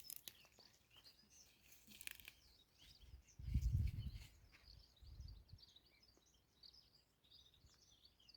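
Birds chirping faintly in the background over rustling and snapping of pea plants as pods are picked, with a brief low rumble about three and a half seconds in.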